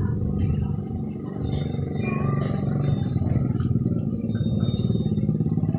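Engine running steadily at an even, rapid firing rate.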